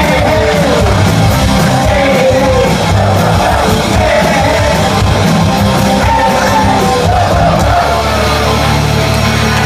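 Punk rock band playing live with distorted electric guitars, bass and drums, a singer shouting the vocal over it, heard loud and roomy through a phone's microphone from within the crowd. Near the end the bass and guitars settle into long held notes.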